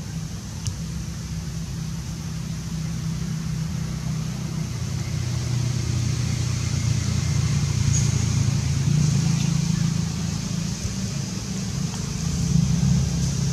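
Low, steady hum of a motor engine running, swelling louder through the middle and easing slightly near the end, over a steady high-pitched drone.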